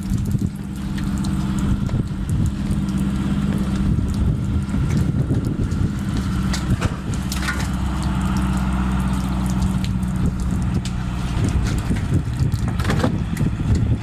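A motor running steadily with a low, even hum, with a few sharp clicks over it.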